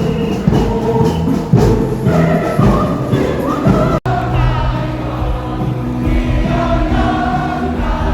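Live music: a drum beats under pitched instruments or voices, then, after an abrupt cut about four seconds in, a group of voices sings held notes.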